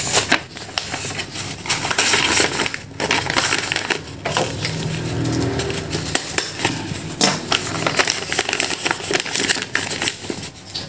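Stiff brown wrapping paper crinkling and rustling as it is pushed through fried rice to scoop it up, with frequent small crackles and scrapes.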